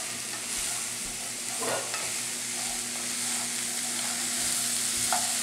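Cut cauliflower, potato and carrot pieces sizzling in oil in a frying pan while a spatula stirs them, scraping the pan a couple of times. The vegetables are being sautéed with cumin, turmeric, chili powder and salt.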